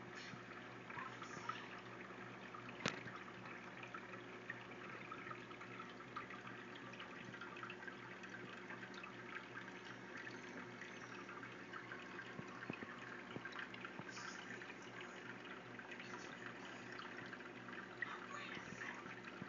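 Aquarium water trickling and bubbling steadily, with a faint steady hum beneath it. There is one sharp click about three seconds in.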